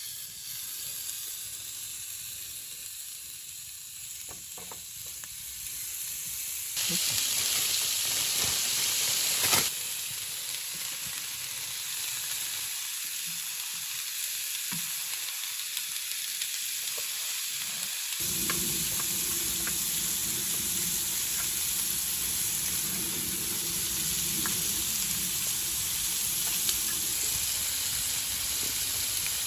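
A steady sizzling hiss that gets louder about seven seconds in, with one sharp click near ten seconds and a lower, fuller layer joining just after eighteen seconds.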